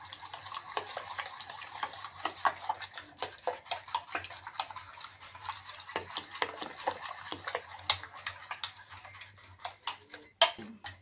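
A metal spoon beats raw eggs with ground masala in a stainless steel bowl, making a rapid, continuous run of clinks against the bowl. There is a louder clink near the end.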